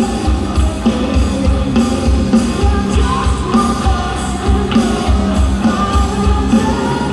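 Live rock band playing through a PA: electric guitars, bass and drums, with a steady kick-drum beat about three times a second.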